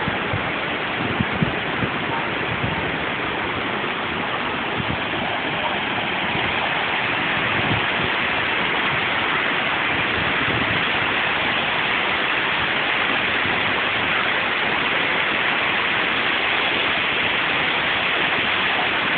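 Waterfall: a steady rush of falling and splashing water, with a few low bumps in the first three seconds.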